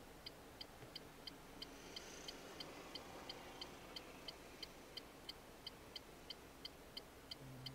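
Car turn-signal indicator ticking steadily inside the cabin, about three crisp ticks a second, while the car waits at a red light.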